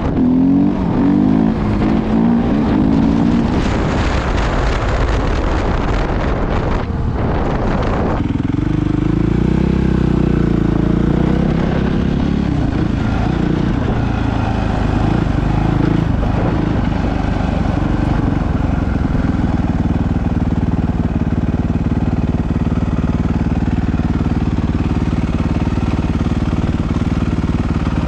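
Suzuki 450 dirt bike's single-cylinder four-stroke engine, ridden under way: held at high revs for about the first eight seconds, then dropping sharply to lower revs. The pitch rises and falls for a few seconds before the engine settles into a steady lower running note.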